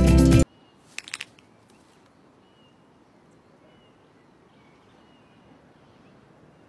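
Music cuts off, then a few quick sharp clicks, then faint outdoor ambience with birds chirping softly now and then in the background.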